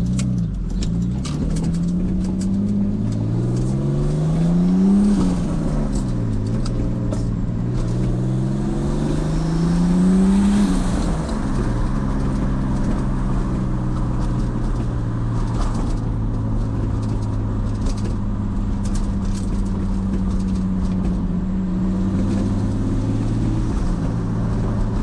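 Turbocharged BMW E46's engine pulling up through the revs twice, dropping in pitch at a gear change about five seconds in and again about eleven seconds in, then running at a steady cruise. The owner calls the engine blown.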